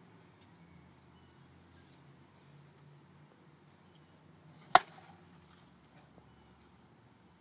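A Miken slowpitch softball bat striking a softball off a batting tee: a single sharp crack about three-quarters of the way through, with a short ring after it.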